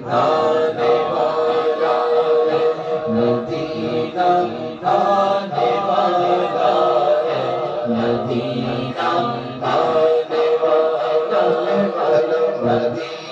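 Two men singing a devotional Urdu naat together into microphones, in long, held, wavering melodic phrases.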